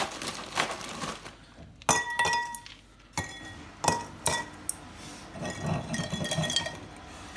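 Ice cubes dropped into drinking glasses: several separate sharp clinks of ice on glass, about two, three and four seconds in, some leaving the glass ringing briefly.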